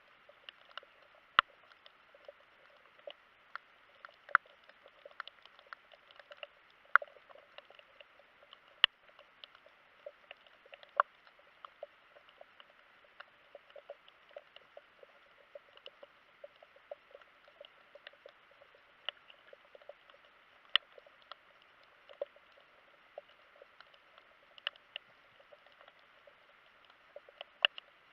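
Underwater crackle: a steady faint hiss with many irregular sharp clicks and snaps, a handful of them much louder than the rest.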